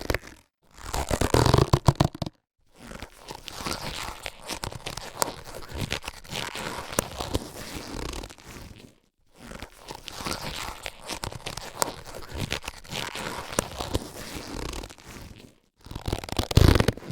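Latex surgical gloves being handled, a crackly rubbing and crinkling with many small clicks. It comes in two long stretches with a short break about halfway, and louder short bursts near the start and the end.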